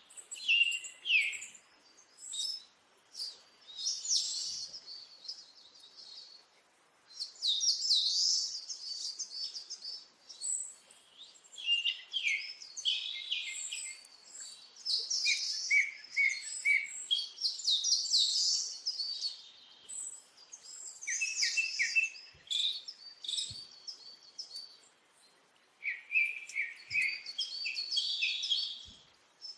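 Birds singing: repeated phrases of quick chirps and trills, separated by short pauses.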